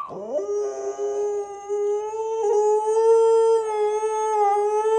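A puppy howling on its owner's cue: one long, steady howl that rises briefly at the start and then holds its pitch.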